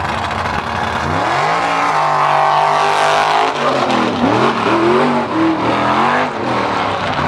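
Mud buggy engine at full throttle in a mud-bog run. The revs climb about a second in and hold high, then swing up and down several times in the second half.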